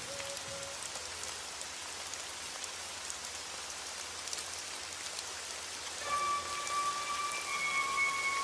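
Steady rain, an even hiss with scattered drop ticks. About six seconds in, the soft held notes of a song's opening begin over it.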